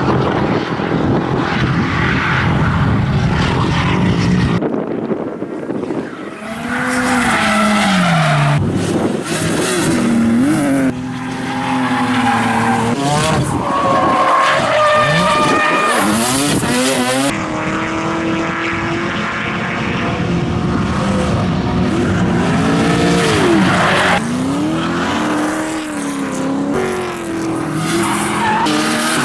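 Drift cars sliding under power, one after another: engines revving up and down hard over screeching tyres. The sound changes abruptly a few times as one car's pass gives way to the next.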